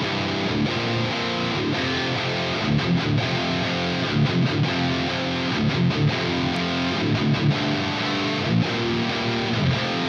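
Gibson Les Paul electric guitar played through a Bogner Snorkler 50 valve amp head: rhythmic riffing of ringing chords and picked notes with steady, accented attacks.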